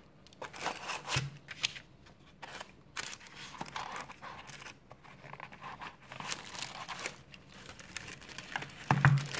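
Tissue paper crinkling and rustling as small boxes are handled and shifted inside a cardboard packing box, with light knocks. The loudest knock comes near the end.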